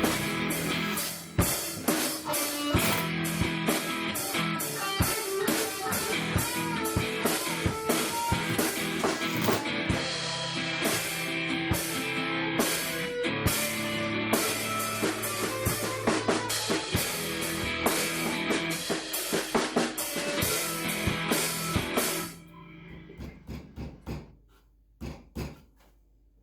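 Background music with a drum kit and guitar keeping a steady beat. It stops about four seconds before the end, leaving a few faint knocks.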